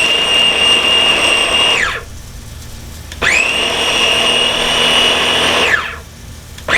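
Food processor pulsed to blend mango chutney ingredients: the motor whines up to speed, runs about two seconds and winds down, runs again for about two and a half seconds, then starts a third time at the very end.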